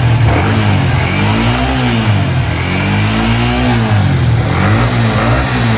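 Yamaha R15 V3's single-cylinder engine revved up and back down about five times, with two longer revs in the middle. The engine has just had its valves, rocker arms and camshaft replaced to cure a noise from the engine.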